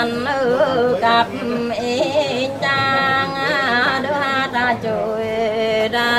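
A woman singing a Mường folk song without accompaniment, her voice wavering and ornamented, with long held notes and short breaths between phrases.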